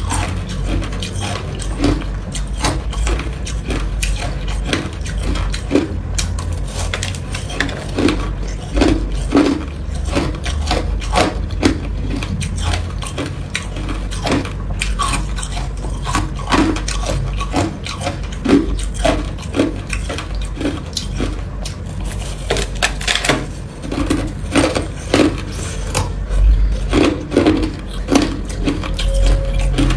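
A person chewing and crunching hard ice close to the microphone: irregular crackling and crunching, several bites a second, over a low rumble.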